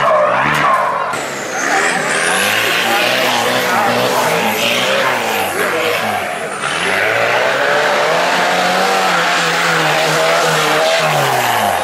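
Modified off-road 4x4's engine revving hard, its pitch repeatedly rising and falling, over the noise of tyres spinning and churning loose dirt.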